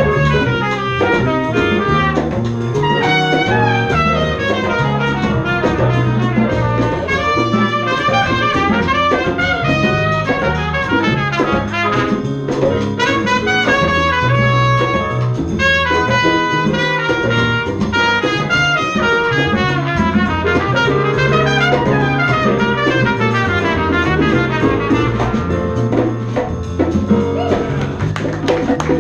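Live jazz band playing: trumpet and saxophone lines over drum kit and a walking low bass line.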